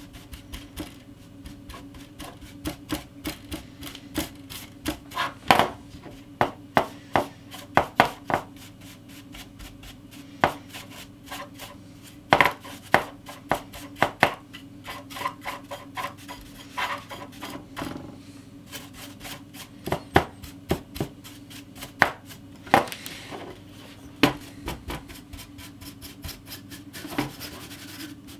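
A soft brush scrubbing dust off the bare circuit board of a GTX 780 graphics card: short scratchy strokes of the bristles over the components, in irregular runs of quick clicks. A steady low hum runs underneath.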